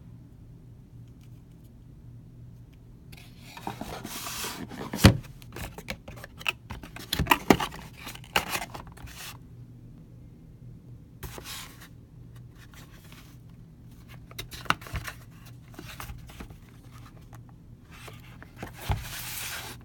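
Cardboard box and oil filter being handled and turned over: bursts of scraping and rubbing of cardboard with a few sharp knocks, the loudest about five seconds in.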